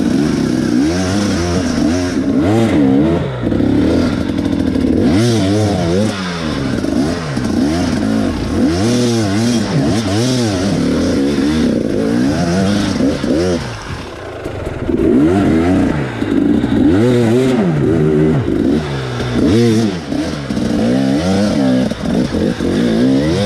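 A 2018 KTM 300 XC-W's two-stroke engine revving up and down in short throttle blips, about once a second, as the bike picks its way up a rocky creek bed, with some clatter of rock under the tyres. The revs drop briefly about two-thirds of the way through.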